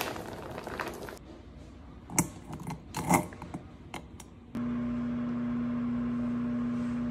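A few sharp metal clicks and knocks as tongs handle frozen dumplings in a stainless steel bowl, then about four and a half seconds in a Cuckoo microwave oven switches on with a sudden, steady electrical hum that carries on.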